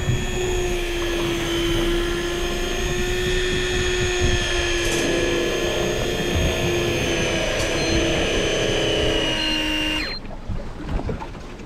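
Electric fishing reel's motor winding in line under the load of a hooked fish: a steady whine, falling slightly in pitch, that cuts off suddenly about ten seconds in.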